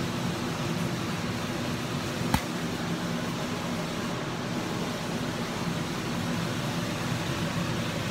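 Teriyaki salmon frying in a pan on a lit gas burner, a steady sizzle under a low steady hum. One sharp tap about two seconds in.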